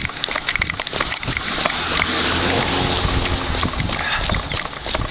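A runner's footsteps on wet asphalt, then a vehicle passing on the wet road, its tyre hiss and engine hum swelling to a peak about halfway through and fading away.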